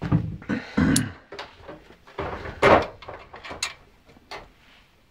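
Irregular metal clunks, knocks and rattles from hands and tools working on an ATV's front end while its winch is taken off, the loudest clunk about two and a half seconds in.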